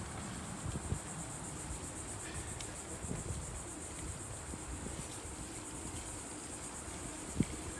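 A steady, high-pitched insect chorus with a fine pulsing, over a low rumble of wind and bicycle tyres on a paved path. A single short knock near the end.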